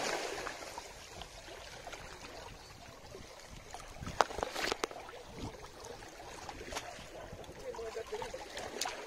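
Water washing and trickling, fading down over the first second to a low steady wash. A few sharp clicks stand out, about four and five seconds in, near seven seconds and near the end.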